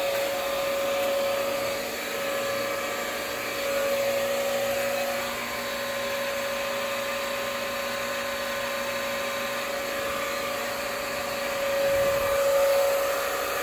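A small motor running steadily: a whirring hum with one steady tone, unchanged throughout.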